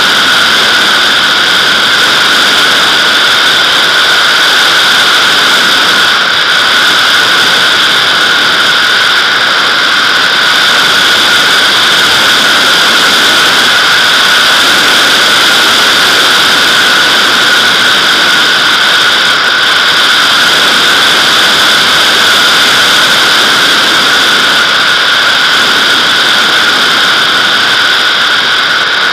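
Airflow rushing over a camera mounted on the fuselage of a Nimbus-2 glider in flight: a loud, steady hiss of wind with a couple of high, steady whistling tones in it.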